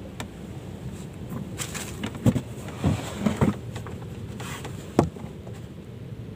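A handful of dull knocks and thumps on a wooden boat, several together about two to three and a half seconds in and one more near five seconds, over a steady low rumble.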